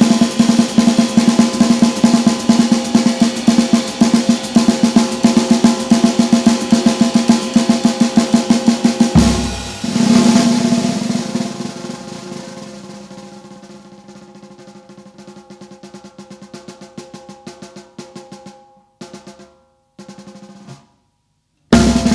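Instrumental band music led by a busy drum kit with rapid snare-drum rolls over sustained pitched instruments. About nine seconds in there is a big accented hit, then the playing fades down over several seconds, breaks off into brief silence, and the full band crashes back in just before the end.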